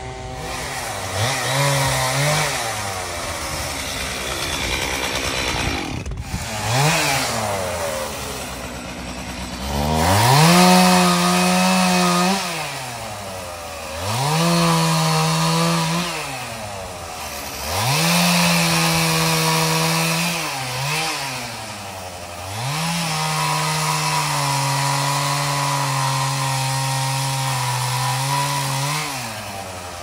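Gas chainsaw revved to full throttle in repeated bursts of a few seconds, dropping back toward idle between them, as it cuts pecan wood. The longest steady run comes near the end.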